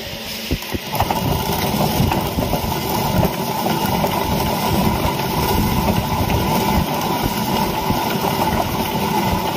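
Hand-turned stone quern (chakki) grinding lentils: about a second in, the upper millstone starts turning on the lower one and gives a steady, gritty rumble of stone on stone as it crushes the dal.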